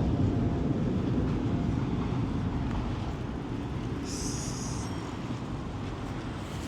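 A tram passing on its rails, its low running noise slowly fading as it moves away, with a brief high hiss about four seconds in.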